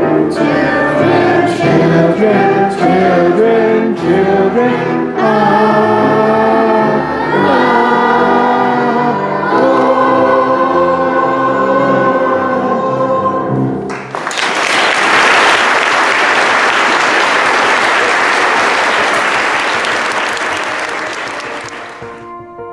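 A group of young children singing together for about fourteen seconds, then a long round of applause that fades near the end.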